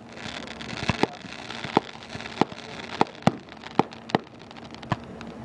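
Fireworks going off: a string of about ten sharp bangs at irregular intervals over a crackling hiss, with the crackle thickest in the first two seconds.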